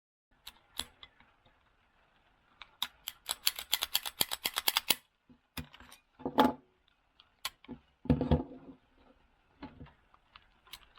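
Handling of a SIG Mosquito .22 LR pistol: a quick run of about twenty sharp clicks over two seconds, followed by a few heavier knocks of metal and plastic parts against a hard surface.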